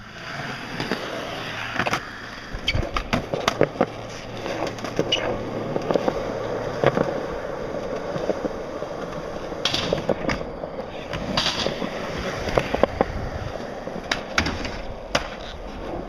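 Skateboard wheels rolling over concrete, with sharp clacks every second or two from the board hitting the ground.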